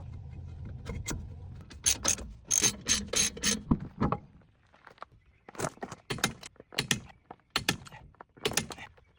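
Hand ratchet wrench clicking in short repeated strokes as a bolt is run down and tightened on the brake assembly.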